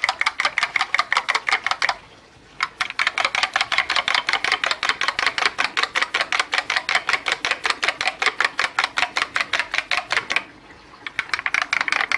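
Eggs being beaten with a metal spoon in a small square dish: the spoon clicks rapidly against the dish, about seven or eight strokes a second, with a short pause about two seconds in and another about ten seconds in.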